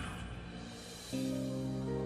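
Background music with steady held notes; a new chord comes in about a second in.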